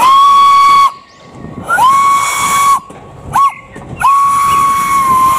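Steam locomotive whistle blowing three long blasts, with a short toot before the last, over a faint steam hiss.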